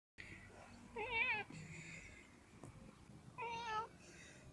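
A cat meowing twice: a wavering call about a second in and a shorter, steadier one about three and a half seconds in.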